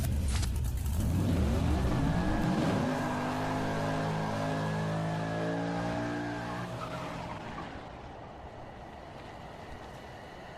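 A car engine pulls away and accelerates: its note rises for a couple of seconds, holds steady, then fades as the car drives off.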